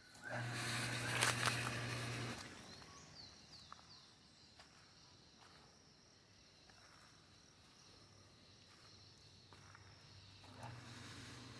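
Rustling, crackling steps through leaf litter on a forest floor, with a steady low hum alongside them, in the first two seconds and again near the end. In between the forest is quiet, with a few short high bird chirps.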